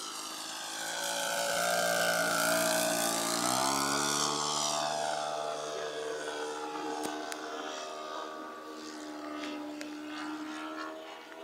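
Radio-controlled P-51 Mustang model's OS 91 Surpass four-stroke glow engine in flight, making a pass. The engine note grows louder, drops in pitch about three and a half seconds in as the plane goes by, then runs on steadily a little quieter.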